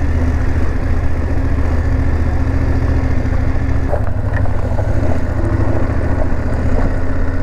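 Adventure motorcycle's engine running steadily at low revs while it is ridden slowly in second gear over a muddy, rutted road, heard from the rider's seat.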